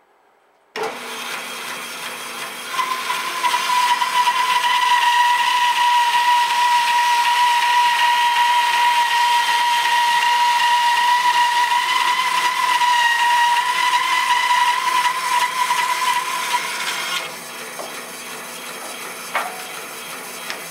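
Bandsaw cutting along the edge of a thick birch log. The saw comes in suddenly about a second in, the cut runs loud with a steady high whine until about 17 s, then the saw runs on more quietly with one brief click near the end.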